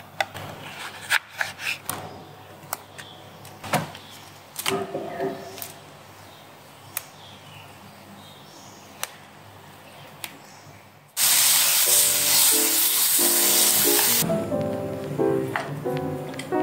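Light clicks and knocks of kitchen handling, then a loud sizzle of food frying in a hot nonstick wok that starts abruptly about eleven seconds in and lasts about three seconds. Gentle background music comes in near the end.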